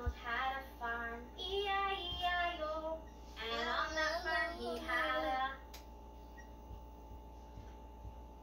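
A high, child-like singing voice in short sung phrases that stops about two-thirds of the way through, leaving a faint steady hum.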